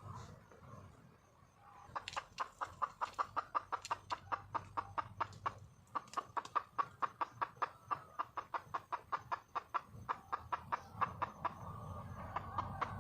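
Wild junglefowl hen calling, a rapid run of short clucking notes at about five a second that starts about two seconds in, falters briefly, and picks up again near the end.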